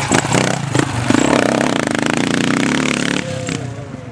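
Enduro dirt bike passing close by, its engine revving hard for about two seconds, then dropping away as it moves off. A few sharp clacks come in the first second.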